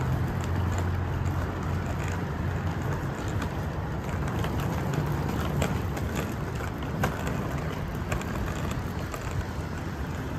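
Outdoor street noise: a steady low rumble with scattered light clicks and taps.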